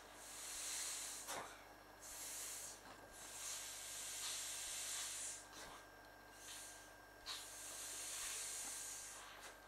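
Breath blown by mouth into the valve of an inflatable clownfish pool toy: a faint airy hiss in about five puffs of one to two seconds each, broken by short pauses to breathe in.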